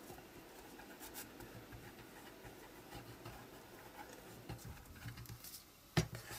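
Faint scratching and rustling of a nib-tipped bottle of fast-grab glue being run over paper while torn paper is handled. A single sharp knock comes about six seconds in, as the bottle is set down.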